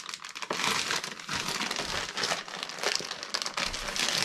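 Thick plastic vacuum-seal packaging crinkling and crackling steadily as it is handled and pulled at to tear it open.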